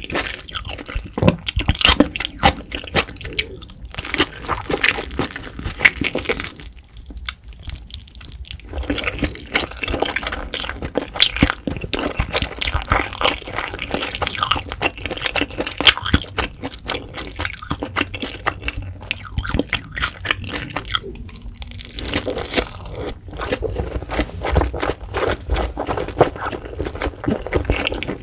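Close-miked wet chewing and smacking of spicy fire-noodle wraps, a dense run of sticky clicks from the saucy noodles, broken by two short pauses.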